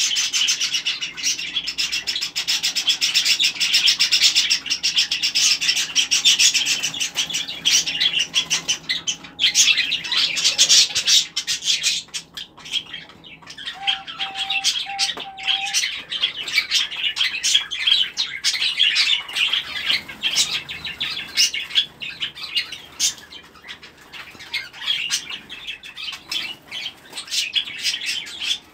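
A flock of budgerigars and other small cage birds chattering and chirping without a break, with wings flapping as birds fly about the aviary.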